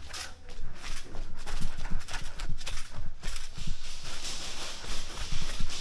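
Quick, irregular footsteps of a player running.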